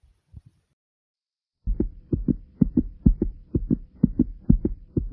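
Human heartbeat: a few faint thumps, a quiet gap of about a second, then from about a third of the way in a loud, fast, regular run of low thumps with a faint steady hum beneath them.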